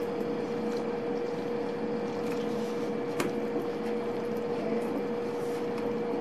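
A steady electrical hum with a held tone, under faint rustling of a hand working flour and liquid into dough in a stainless steel bowl; one short click about three seconds in.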